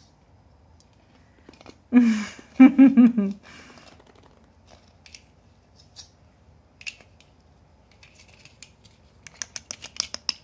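A short loud burst of voice about two seconds in. Later there are scattered light clicks, and near the end a quick run of sharp clicking as puppies mouth the plastic Christmas ornaments.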